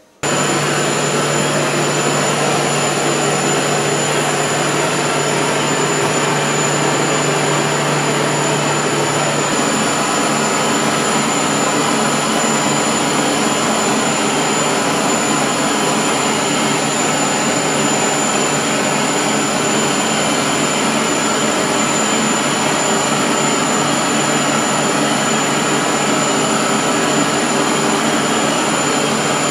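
Hand-held gas torch burning with a loud, steady hiss that starts abruptly just after the beginning and holds without a break.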